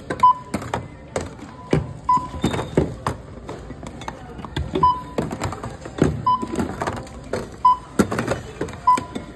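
Checkout barcode scanner beeping about six times at uneven intervals as items are scanned, with metal food cans knocking on the stainless-steel counter in between.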